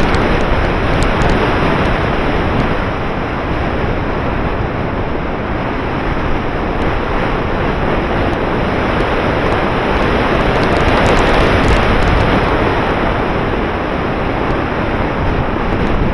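Steady rush of airflow over a Multiplex Kurt RC glider's wing-mounted action camera as it glides in to land, with no motor heard. The rushing swells a little past the middle.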